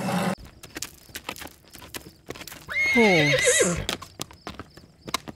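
Horse hooves clip-clopping in an irregular run of knocks, with a horse whinnying once about three seconds in, its pitch falling away.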